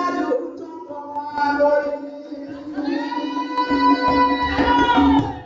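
A man singing a danda folk song through a microphone and PA, his voice high, ending on a long held note. Low drum strokes start under the note near the end.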